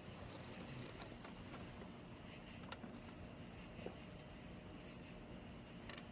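Quiet room tone: a faint steady hiss and low hum, with a few soft clicks.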